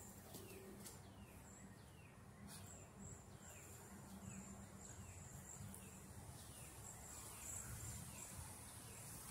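Near silence with faint outdoor ambience. A bird gives a short, falling chirp about twice a second, and a high insect trill comes and goes.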